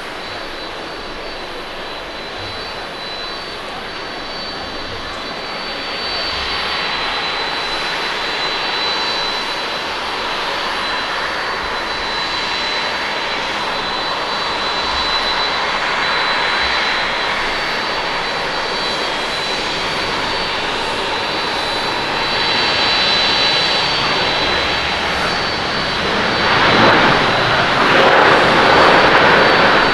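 Boeing 787-8 Dreamliner's twin GEnx jet engines on landing: a steady rush with a high whine on approach, growing louder as it comes down onto the runway. About four seconds before the end the thrust reversers deploy and a louder rush of reverse thrust takes over as the airliner slows.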